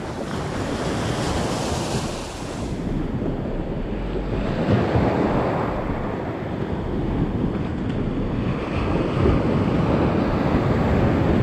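Surf washing up on a beach, swelling louder about halfway through and again near the end, with wind rumbling on the microphone.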